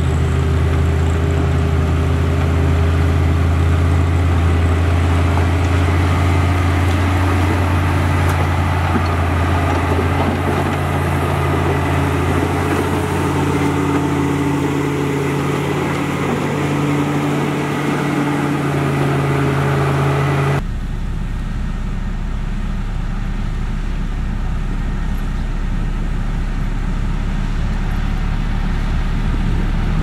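Komatsu GD655 motor grader's diesel engine running steadily while it grades soil. About two-thirds of the way through the sound changes suddenly to a Liugong 6122E padfoot road roller's engine, with a strong deep hum.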